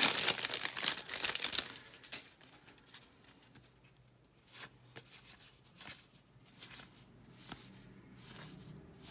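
Clear plastic wrapper on a pack of baseball cards crinkling as it is pulled off, for about the first two seconds. Then faint, separate swishes as cards are slid one at a time off the stack, about one or two a second.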